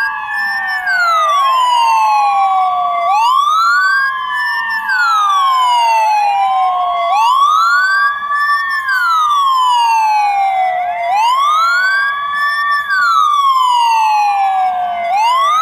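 Ambulance siren in wail mode: a tone that climbs quickly and sinks slowly, repeating about every four seconds, with a second siren tone overlapping it.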